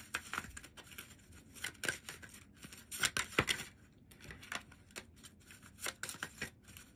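A deck of tarot cards being shuffled by hand: soft, irregular snaps and rustles as the cards riffle and slide against each other.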